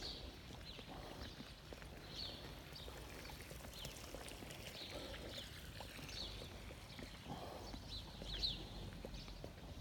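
Faint outdoor ambience: small birds chirping repeatedly, with soft footsteps on paving.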